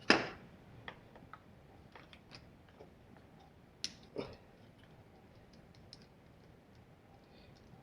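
Small hand tools and metal RC parts clicking and tapping, with a loud knock at the very start and a sharp click followed by a knock about four seconds in.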